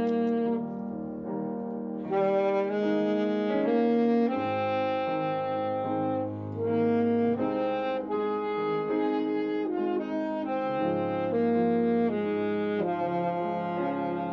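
Saxophone playing a slow melody of held notes, with a low accompaniment sustained underneath for long stretches. It is a beginner's playing, three months in, with notes a little off pitch in places. The melody drops back about half a second in and comes in strongly again about two seconds in.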